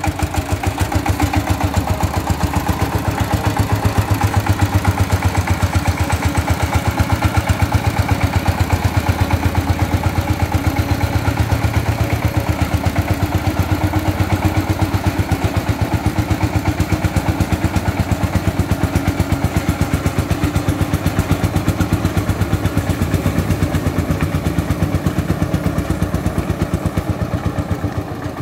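Single-cylinder diesel engine of a three-wheeled công nông farm vehicle chugging steadily in a fast, even rhythm as it hauls a load of bricks. The sound grows a little fainter near the end as it pulls away.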